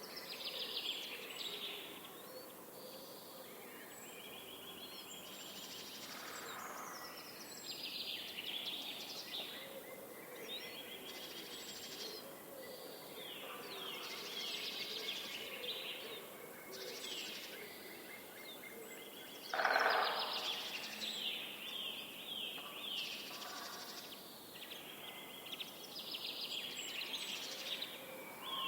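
Many songbirds singing and calling at once, a dense mix of chirps, quick trills and sweeping whistled notes that never lets up. About twenty seconds in, one louder, lower-pitched call stands out briefly.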